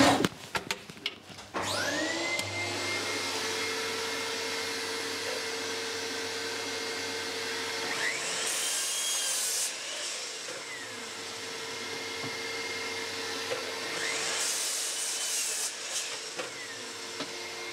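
A workshop dust extractor starts with a rising whine and then runs steadily. Over it, a sliding mitre saw spins up twice, about halfway through and again near the end, each time cutting through a length of 4x2 construction softwood and then winding down.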